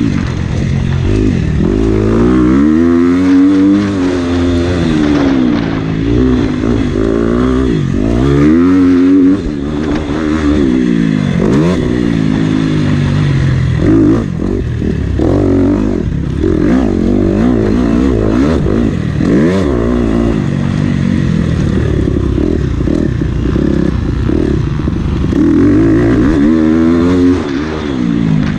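Motocross bike's engine revving hard and easing off over and over as it is ridden around a dirt track, heard from on the bike. The pitch climbs and drops every second or two.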